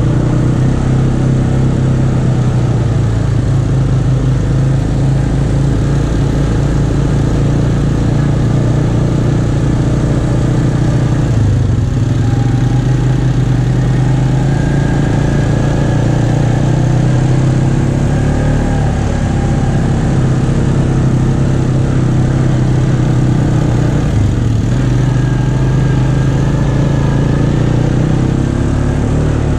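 ATV engine running at a steady riding pace, easing off the throttle briefly about twelve seconds in and again about twenty-four seconds in.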